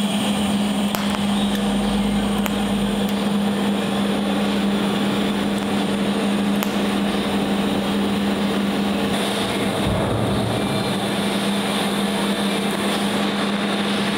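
TIG welding on a steel frame rail: a steady electrical hum with a hiss and a few faint clicks.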